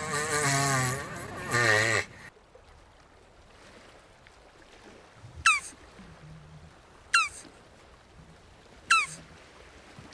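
A jabuti tortoise calling: a wavering, bleating groan that breaks off about two seconds in. Later, three short high calls, each falling sharply in pitch, come about a second and a half apart.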